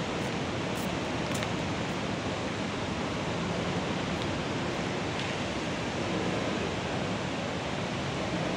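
Steady, even rushing background noise with no distinct source, and a couple of faint ticks about a second in.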